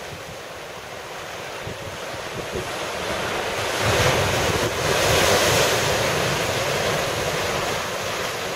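Surf breaking over the boulders of a rocky shore: the wash builds to a wave crashing about four seconds in, stays loudest for a couple of seconds, then eases as the water runs back. Wind buffets the microphone.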